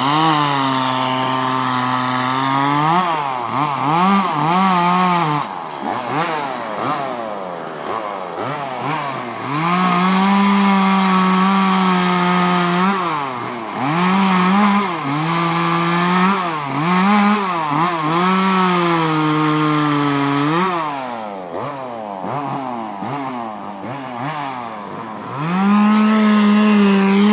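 Chainsaw carving wood, its engine revving up and down over and over, with several steady full-throttle stretches of a few seconds while the chain cuts.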